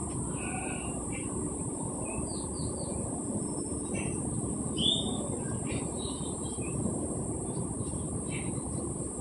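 Birds chirping in short, scattered calls, one louder chirp about halfway through, over a steady low rumbling background noise.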